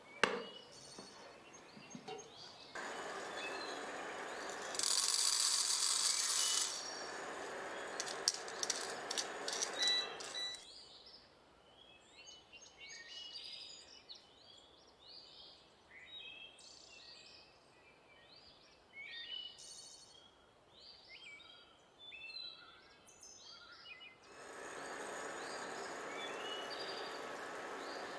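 Kitchen cooking sounds: a steady hiss, then a quieter stretch of many short, scattered clicks and taps, then the steady hiss again.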